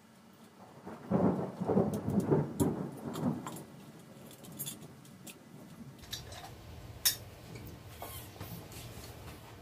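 Cylinder head being worked free and lifted off a single-cylinder flathead engine block, scraping and clunking for a couple of seconds from about a second in. Small metallic clicks follow, with one sharp tick later on.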